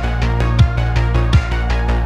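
Background electronic music with a steady beat: a kick drum about every three-quarters of a second over a sustained bass line.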